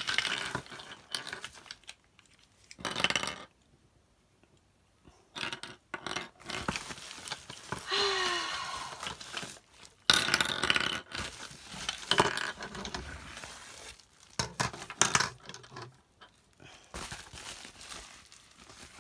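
Short PVC pipes and plastic fittings being handled and set down on a table, hard plastic clicking and clattering in irregular bursts with short pauses, along with the rustle of a plastic bubble-wrap bag.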